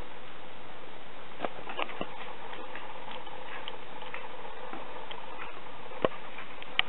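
A small dog gnawing a hard chew: irregular sharp clicks and scrapes of teeth on the chew, two louder clicks near the end, over a steady hiss.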